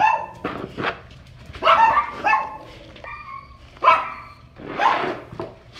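Dog giving a string of short, high-pitched barks, roughly one a second.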